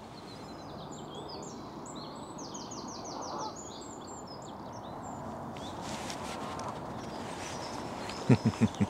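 Small birds singing, with quick chirps and a short rapid trill, over the steady low rumble of distant road traffic. Near the end a duck quacks four times in quick succession.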